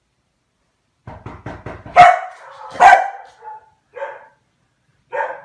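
A dog barking: a few quick thumps, then two loud barks under a second apart, followed by a few shorter, quieter calls.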